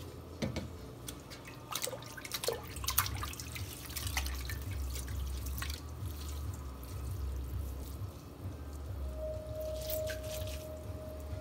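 Water dripping and splashing into a pot and a stainless steel sink as cooked rice vermicelli noodles are squeezed out by hand. The drops come thick in the first half and thin out later, over a steady low hum.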